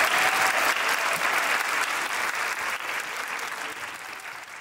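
Audience applause, many hands clapping, fading out steadily.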